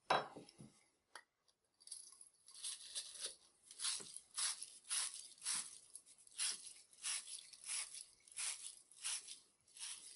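A tool scraping back and forth inside a copper pipe, clearing out shavings, with about one and a half strokes a second. A sharp knock comes right at the start.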